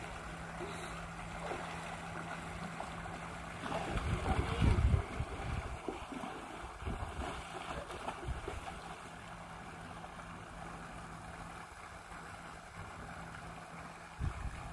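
Sea water splashing and lapping as a child swims and then wades ashore, over a steady low hum, with a brief louder rumble about four seconds in.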